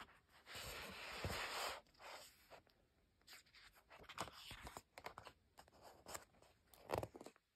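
A picture book being opened and its pages turned by hand: a soft scrape of paper rubbing for about a second, then light paper rustles, with a sharper page flip near the end.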